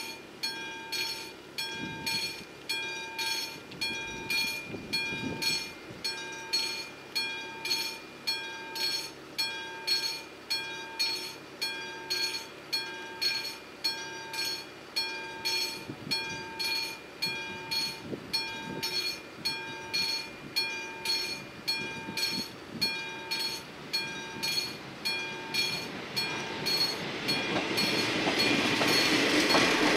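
AŽD 71 level-crossing warning bell, a classic mechanical bell, ringing with about three strikes every two seconds while the crossing is closed for a train. Near the end an approaching diesel railcar, a Regionova, grows steadily louder under the bell.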